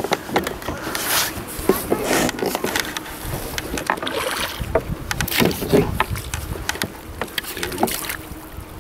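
A hooked rainbow trout splashing at the water's surface in irregular bursts as it is brought to a landing net.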